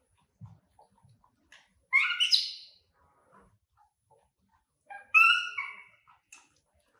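Baby monkey giving two high-pitched calls about three seconds apart, each under a second long, with faint small knocks and rustles between them.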